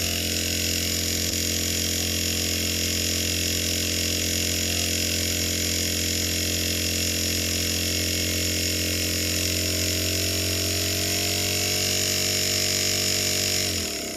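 Restored refrigerator inverter compressor running on an IPM inverter drive: a steady hum with a stack of whining tones and a hiss. Near the end its pitch drops quickly and it winds down as the drive is cut.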